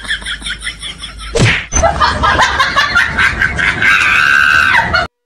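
A comic beating: a thump, then a rapid run of slaps and blows, about five a second, with a long high-pitched yell of pain near the end that cuts off suddenly.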